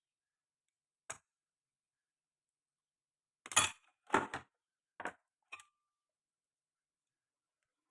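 Several short sharp clicks and clinks of small hard objects being handled: one about a second in, then four in quick succession between about three and a half and five and a half seconds.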